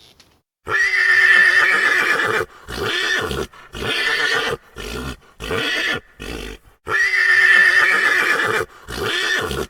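Horse neighing: a long whinny, then several shorter ones, with the same run of calls coming round again about seven seconds in.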